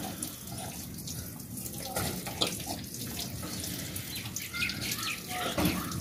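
Water running steadily from a tap, with a few faint small clicks.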